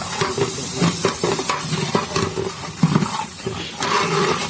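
Masala paste frying in oil in a large cooking pot, sizzling, with irregular scrapes and knocks as a big ladle stirs it.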